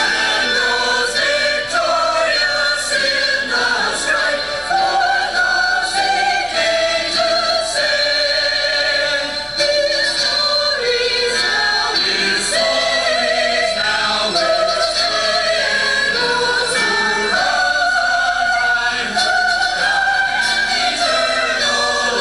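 Mixed church choir of men's and women's voices singing a sustained hymn-like piece in parts.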